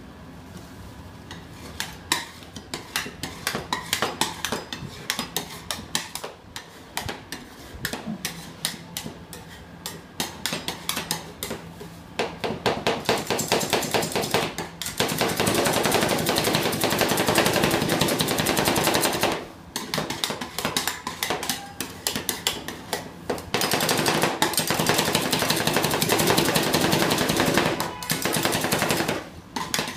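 Two metal spatulas rapidly chopping and tapping on the steel surface of a frozen rolled-ice-cream pan, working brownie into the ice cream base. Fast runs of clattering strikes, densest in two long stretches in the second half.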